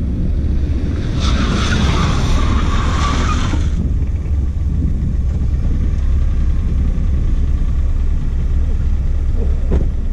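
Honda Insight sliding across asphalt on plastic trays under its rear tyres: a harsh scraping hiss for about two and a half seconds, starting about a second in, over a steady low rumble.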